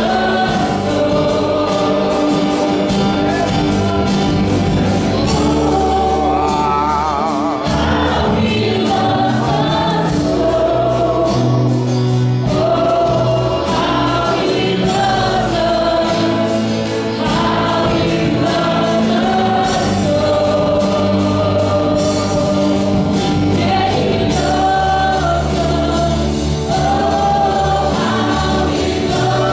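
A worship team singing a gospel song with a choir of voices over a full band with a steady beat.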